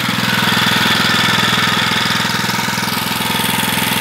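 Small single-cylinder engine running steadily with a rapid, even firing beat. The owner says it runs on hydrogen and oxygen gas from a battery-powered water electrolysis unit fed into its air intake, with no petrol.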